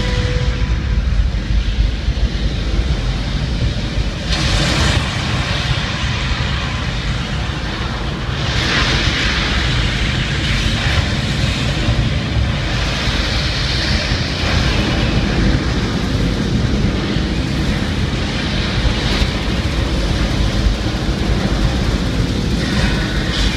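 Saturn V launch roar played loud through a theater's sound system at liftoff: a dense, steady low rumble, with harsher rushing swells in the upper range every few seconds.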